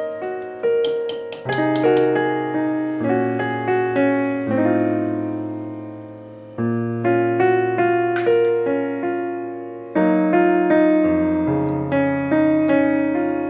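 Background piano music: single notes and chords struck in a steady gentle pattern, each left to ring and fade, with a few sharp clicks about a second in.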